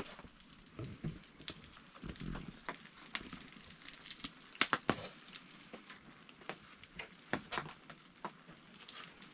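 Campfire crackling with irregular sharp pops, the loudest couple of pops about halfway through.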